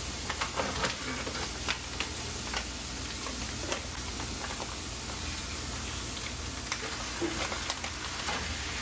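Chopped onion and garlic sizzling steadily in a frying pan, with scattered light crinkles and clicks from a plastic ground-turkey package being handled.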